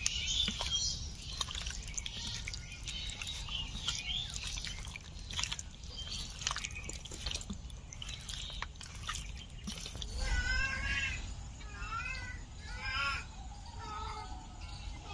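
Wet squelching and smacking of hands kneading raw chicken pieces in an oily, spiced yogurt marinade in a steel bowl. From about ten seconds in, a cat meows repeatedly, several rising-and-falling calls roughly a second apart.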